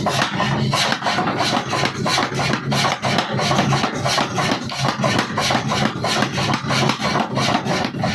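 A 75 kg mechanical forging hammer pounding a square workpiece, its blows coming in a rapid, steady succession over a low hum.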